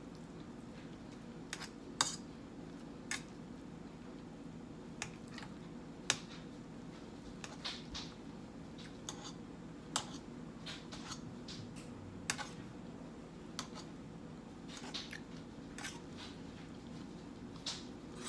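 A person eating cheesy spaghetti and salad: irregular sharp clicks and smacks, about one a second, over a steady low hum.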